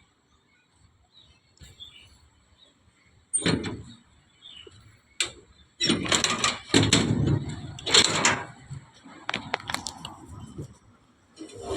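Metal clunks, knocks and rattling scrapes from a door or access cover on a Hyundai R220-9S excavator being opened and shut, with the engine not yet running. After a quiet start come two sharp knocks, then a few seconds of loud clattering.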